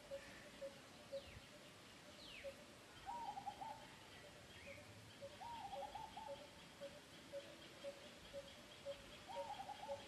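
Faint wild bird calls: one bird repeats a single low note about twice a second, another gives a short call of a few quick notes three times, and two falling whistles come in the first few seconds.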